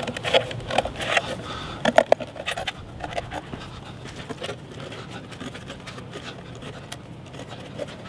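Buck 110 folding knife blade cutting around the lid of a large tin can: a rapid run of metallic scrapes and clicks of steel on tin, the sharpest about two seconds in.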